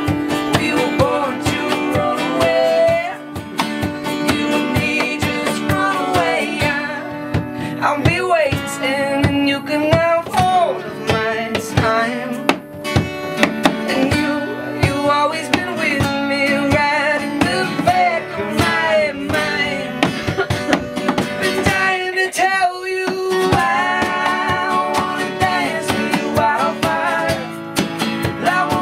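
Live acoustic song: a man singing over strummed acoustic guitars.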